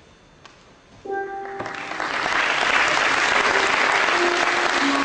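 Audience applauding: clapping builds up about a second and a half in and keeps going. A few notes from a live acoustic guitar sound just before and over it.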